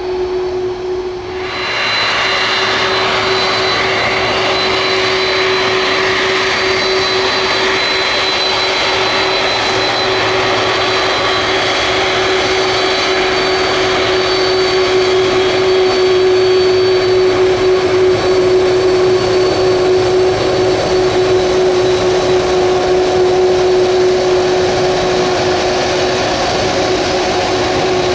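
Jet engines of a widebody airliner taxiing, a steady low hum with a high whine over a broad rush of engine noise. The sound steps up about a second and a half in and grows a little louder about halfway through, while the high whine fades.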